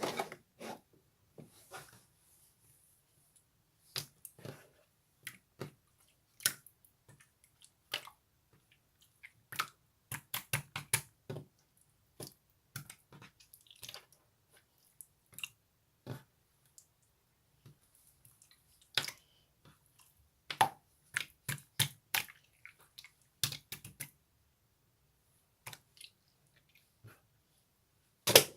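Slime being squished and pressed by hand, making irregular sticky clicks and small pops with short quiet gaps between them.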